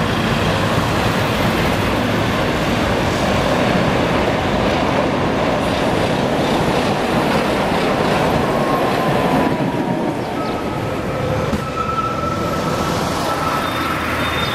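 Articulated tram running past on street track, a loud even rumble of wheels on rails. About ten seconds in, a steady high squeal of tram wheels on the rails sets in.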